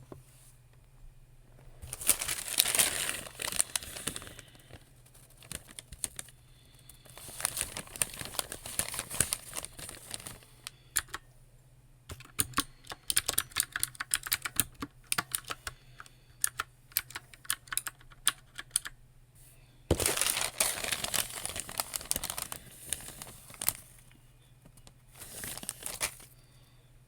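Close-up typing on a computer keyboard: runs of quick keystroke clicks, broken by several louder spells of dense crackling, typical of crinkling paper. A faint low hum runs underneath.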